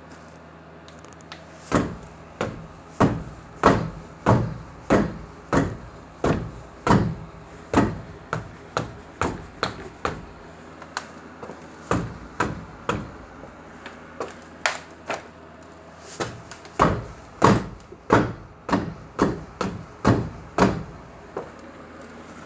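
Rhythmic knocking from a damaged wheel on a Mercedes-Benz Vito van, about one and a half knocks a second with uneven strength, pausing briefly twice: damage left by hitting a curb.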